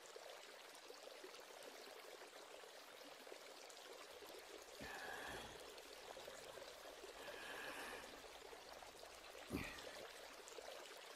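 Near silence: a faint steady hiss, with two faint, second-long sounds about halfway through and a short soft knock near the end.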